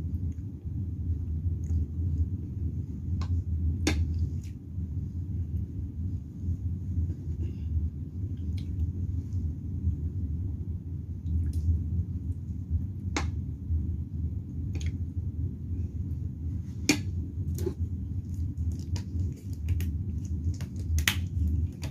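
Spoon and fork clinking and scraping now and then on a ceramic plate of rice, as scattered sharp clicks over a steady low hum. Near the end a plastic water bottle is handled and its cap twisted, in a quick run of small clicks and crackles.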